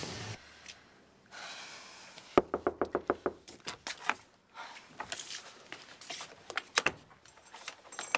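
A quick run of about a dozen sharp knocks or taps, then scattered lighter taps and clicks.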